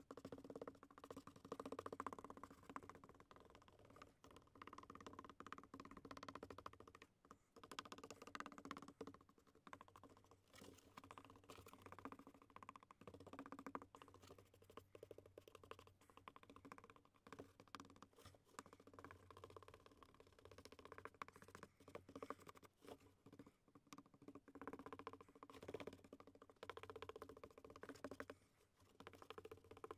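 Faint, irregular small taps and scratches from handwork on cardboard.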